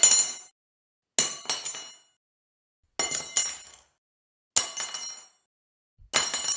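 A metal fork dropped onto a hard surface again and again, about every one and a half seconds. Each drop clinks with two or three quick bounces and a short high ring.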